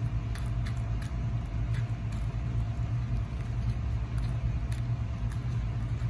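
A steady low mechanical hum and rumble, with faint scattered ticks and rustles of loose birdseed as a cardboard roll is rolled through a plastic tray of seed.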